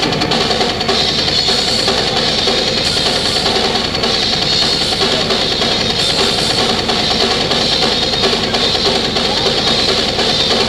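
Heavy metal drum kit solo, played fast and without a break: rapid drum strokes under a steady wash of cymbals.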